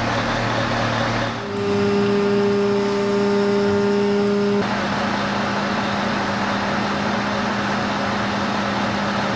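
Truck-mounted crane's engine running steadily while the crane works. For about three seconds, starting about a second and a half in, a strong steady pitched hum stands out over it.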